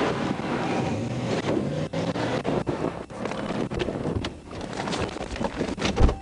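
Wind rushing over a microphone with road traffic and engine noise underneath, broken by frequent short crackles.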